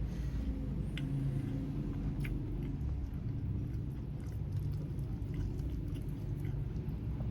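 Chewing and biting into grilled chicken, with a few faint wet clicks, over a steady low rumble.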